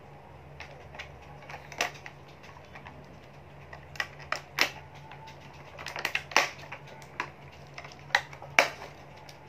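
Hard plastic clicking as a plastic transforming-robot toy figure is handled in its clear plastic packaging tray: irregular sharp clicks and snaps, with a quick cluster about six seconds in.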